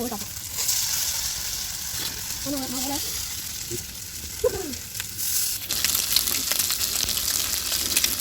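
Fish frying in oil on a tawa, a steady sizzle with fine crackling, which grows denser and sharper from about six seconds in.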